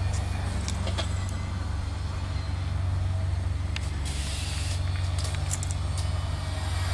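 LaTrax Rally 1/18-scale electric RC car running on an asphalt track, its motor and tyres giving a faint whir that gets louder for a moment about four seconds in. A steady low rumble runs underneath, with a few sharp ticks.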